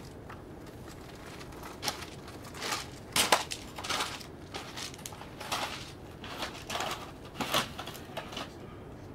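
Footsteps crunching on a gravel floor: about a dozen uneven steps, irregularly spaced, over several seconds.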